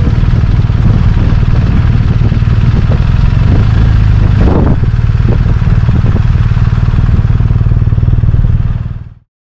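BMW R 1250 RT's boxer-twin engine running at low speed, heard close up from the bike, with a few light knocks. It fades out near the end.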